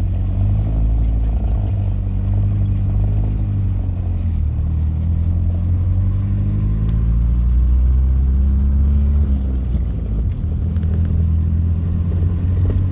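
Car engine and road rumble heard from inside a moving car's cabin, the engine note drifting up and down with speed.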